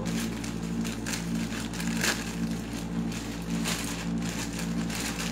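Plastic courier mailer and an inner clear plastic bag crinkling and rustling as they are handled and opened, in irregular crackles, over a steady low hum.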